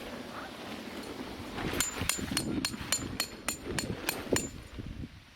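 Rapid, even hammer blows on metal, about three a second, each with a short high ring, starting a little under two seconds in.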